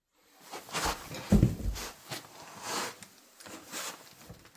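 A new oil filter being unpacked from its packaging: a few short rustles and knocks, the loudest about a second and a half in.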